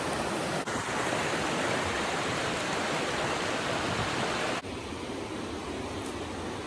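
Jacks River, a mountain river, rushing over rocks and small rapids as a steady wash of water noise. About two-thirds of the way through it drops abruptly to a softer, quieter flow.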